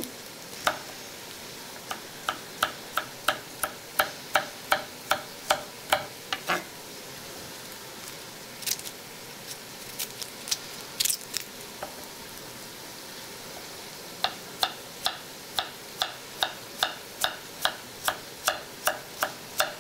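Knife chopping carrots on a wooden cutting board: a run of regular chops, about three a second, then several seconds with only a few scattered cuts, then another steady run of chops.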